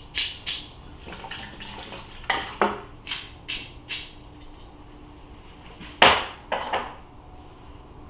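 Sharp clinks and knocks of kitchenware against a stainless steel pressure cooker pot, in a few short clusters with a quiet stretch between, the loudest about six seconds in.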